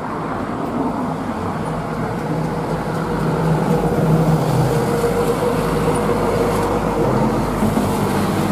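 Loaded Hino 500 diesel truck driving past on a road: a steady engine drone with road traffic noise, growing louder as the truck approaches and passes.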